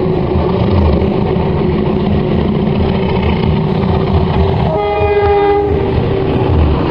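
Train sound effect: a train running with a dense, steady rumble and rail clatter, and a horn blast lasting under a second about five seconds in. Booming.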